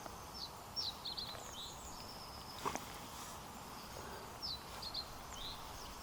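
Small birds chirping in short, high notes scattered over a quiet outdoor background hiss, with one brief knock about two and a half seconds in.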